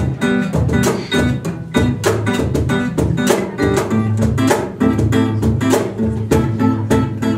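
Acoustic guitar strumming chords with a cajón keeping a steady beat of about four strokes a second.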